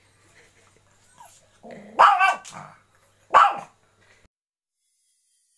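Pomeranian barking at people on the television: two loud barks about a second and a half apart, a softer one just before the first.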